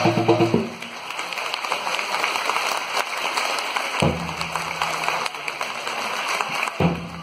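Drum-backed music stops about half a second in, giving way to steady audience applause. A low hum comes in twice, about four seconds in and again near the end.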